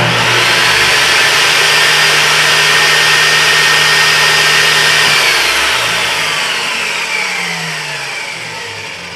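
Lotus 1800 W table saw switched on, its motor and blade running at full speed for about five seconds, then switched off and winding down with a falling whine. A test of its newly fitted magnetic switch, which starts and stops the saw with no problem.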